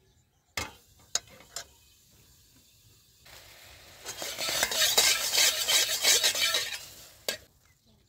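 Metal spatula clinking against a steel wok a few times, then scraping around the hot wok for a few seconds with a sizzle. It ends with one more clink.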